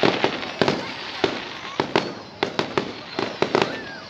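Fireworks display: a quick, irregular series of sharp bangs from bursting shells over a continuous crackling hiss.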